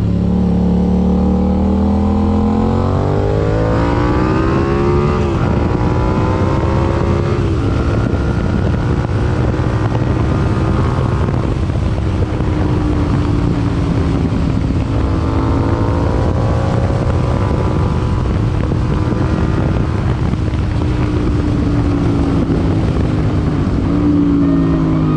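Yamaha MT-07's 689 cc parallel-twin engine through an aftermarket IXIL IXRACE MK2 exhaust, on the move. The revs climb and drop sharply at an upshift about five seconds in, climb and drop again at a second upshift about seven and a half seconds in, then rise and fall more gently while cruising.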